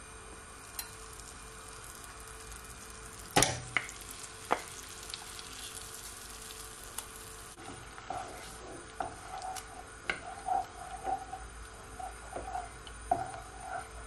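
Butter melting and sizzling softly in a ceramic-lined saucepan over low heat as it starts to brown, with one sharp knock about three and a half seconds in. From about halfway, a wooden spatula stirs the melting butter, scraping and knocking against the pan a few times a second.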